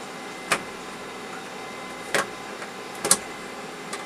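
Sharp plastic clicks and knocks from unlatching and handling the front panel of an Avaya Definity PBX cabinet, four in all, the third one doubled, over the steady hum of the freshly powered-up system.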